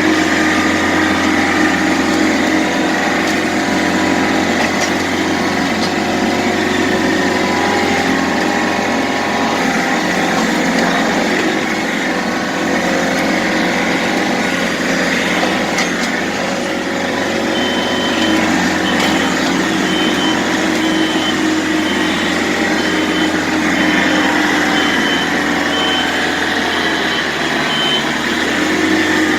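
John Deere 110 backhoe loader's diesel engine running steadily under work. A little past halfway its backup alarm starts beeping, about a dozen evenly spaced high beeps, stopping shortly before the end.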